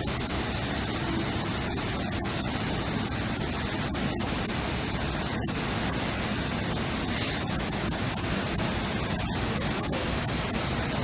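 Steady, even hiss like static, with a few momentary gaps and no distinct events.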